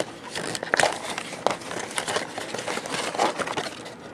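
Cat-treat toy's packaging being opened by hand: irregular crinkling and crackling with sharp little snaps and rustles.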